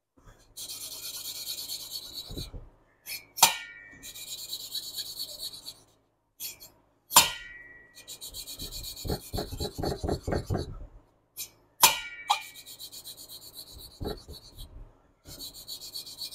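Valve lapping by hand: an intake valve is spun back and forth on its seat in a Porsche 912E Type 4 aluminium cylinder head with lapping compound, giving bouts of gritty grinding. The grind is fairly even, which is taken as the sign that the valve is seating properly. Three sharp clicks with a short ring fall between the bouts, about every four seconds.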